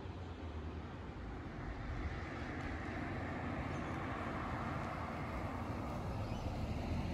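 A car driving up the road and approaching, its tyre and engine noise swelling from about two seconds in and staying loud near the end.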